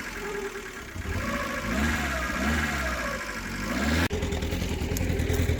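Vehicle engine running under load, its pitch rising and falling as the revs change, heard from on board; the sound breaks off abruptly about four seconds in and resumes.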